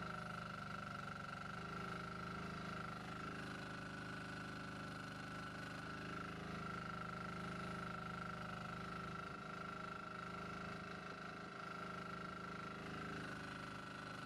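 Jansen MB-2000 mini excavator running steadily while digging, its engine and hydraulics working the arm and bucket. A steady high whine wavers briefly about three times as the arm moves.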